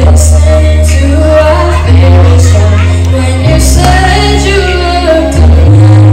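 A boy singing into a microphone over a loud pop backing track, with deep held bass notes that change every couple of seconds.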